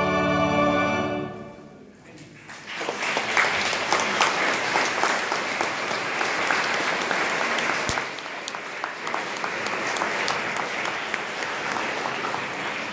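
A choir's final held chord fades away, and about two and a half seconds in the congregation breaks into steady applause that carries on.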